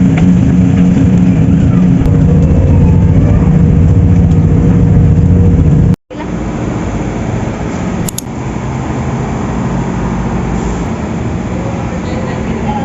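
A vehicle's engine running with a steady low drone, cut off sharply about six seconds in and replaced by quieter, rougher road rumble.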